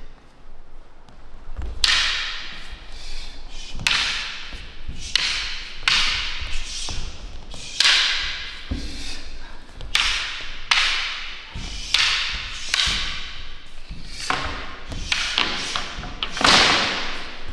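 Repeated sharp slaps and thuds of martial-arts strikes landing, irregularly about once a second, each dying away quickly.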